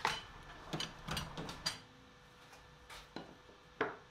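Clicks and light metallic clinks of layout tools in a steel tool-chest drawer as a Woodpeckers square is lifted out, then a couple of sharp knocks near the end as it is handled at the bench.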